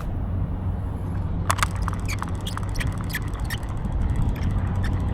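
Vintage St. Croix Fishing Machine spincast reel being cranked on the retrieve, ticking rapidly at about four to five clicks a second from about a second and a half in. A steady low rumble runs underneath.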